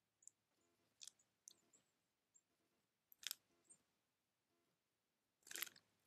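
Eurasian tree sparrow bathing and drinking in a shallow stony bird bath: a few sharp clicks and small splashes, the loudest a little past three seconds in and a longer one near the end, over near silence.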